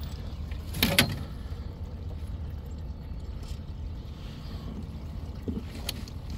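Steady low rumble aboard a fishing boat, with one sharp click about a second in and a couple of faint knocks near the end.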